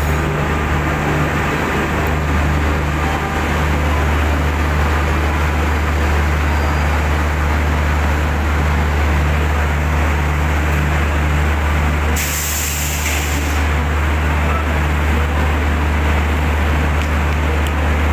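Indian Railways electric locomotive pulling in and drawing up alongside the platform, a steady low hum under the rumble of the train. About twelve seconds in there is a short burst of compressed-air hiss lasting under two seconds.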